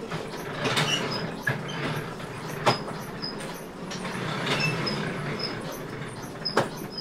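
Bakery kitchen machinery running with a steady rumble and a short, high squeak repeating every half second or so, with two sharp metallic knocks, one about midway and one near the end.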